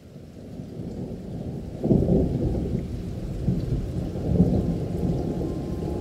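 Thunderstorm: steady rain with rolling thunder, fading in, then a heavier thunder rumble breaking in about two seconds in and swelling again later.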